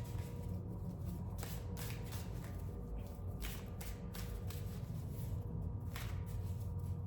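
Steady low rumble of street-cleaning equipment working on concrete, with a faint steady whine. Over it come irregular short rasping strokes, like cards being shuffled.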